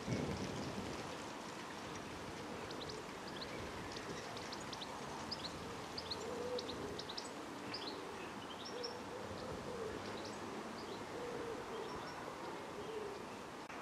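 Small birds chirping throughout over a steady background hiss, with a pigeon cooing repeatedly in low hooting phrases from about six seconds in. A brief low thump at the very start.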